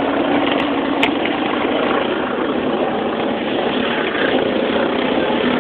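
Vehicle engine and road noise running steadily, heard from inside an enclosed dog box riding along a rough track, with a faint steady hum and one light knock about a second in.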